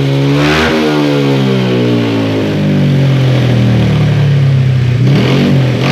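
Honda Scoopy FI's single-cylinder scooter engine, bored up to 130 cc, running on the stand while its ECU map is being tuned. The throttle is blipped briefly just after the start, the engine settles into a steady idle, and it is blipped again near the end.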